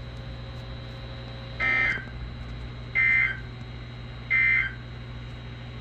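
Emergency Alert System end-of-message data burst from a NOAA Weather Radio broadcast: three short, identical two-tone warbling squawks about a second apart. They are the digital code that marks the end of the alert message.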